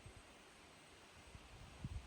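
Near silence: a faint steady hiss with a few soft low thumps, the clearest near the end.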